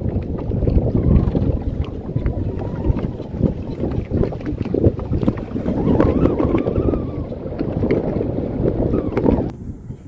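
Wind buffeting the microphone over the rush of water around a small fishing boat under way. The sound drops off abruptly near the end.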